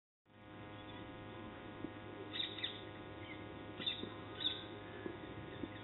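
Birds chirping in short, scattered calls over a steady low hum of field ambience, heard through a camera microphone. The sound comes in a moment after the start.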